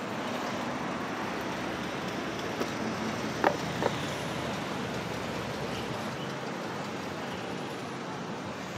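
Steady road traffic noise from cars passing on the street, with a couple of faint clicks about three and a half seconds in.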